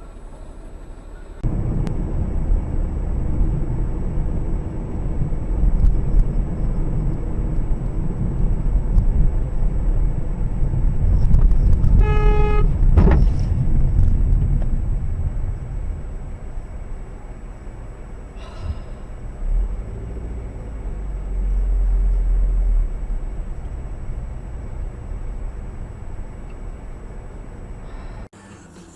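Steady low rumble of a car driving. About twelve seconds in a car horn sounds briefly, followed at once by a sharp bang.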